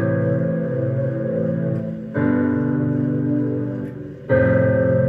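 Electronic keyboard played with a piano sound: full, held chords over a bass note. A new chord is struck about two seconds in and again about four seconds in.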